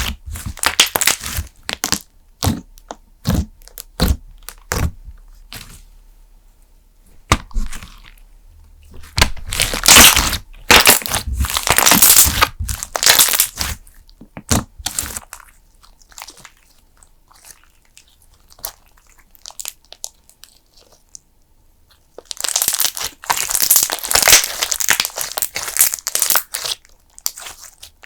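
PBJ cream slime being squished and pressed by hands, giving crackly, popping clicks. The clicks come in dense runs about a third of the way in and again near the end, with a sparser stretch of scattered pops between them.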